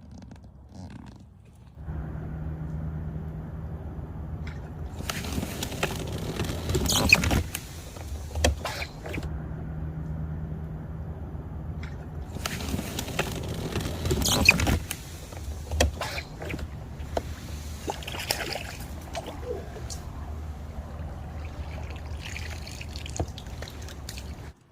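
Crucian carp splashing at the water's surface as it is landed: two loud splashy bursts several seconds apart, then lighter splashes. Under it runs a steady low hum that starts about two seconds in.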